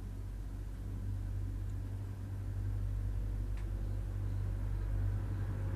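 Steady low hum, slowly getting louder, with a couple of faint ticks.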